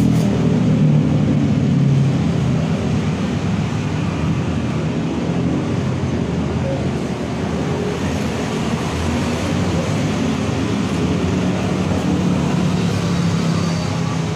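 Steady road traffic noise, a little heavier in the first couple of seconds.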